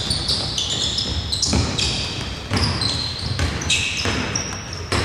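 Basketball being dribbled on a hardwood court, a sharp knock about once a second, with repeated short high squeaks of sneakers on the floor, in a large, empty sports hall.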